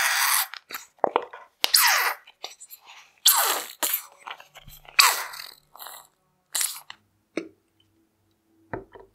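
A plastic squeeze tube of peel-off face-mask gel squelching and sputtering as it is squeezed into a bowl, with air and gel spurting from the nozzle in a series of short wet bursts that thin out over time. A short click comes near the end.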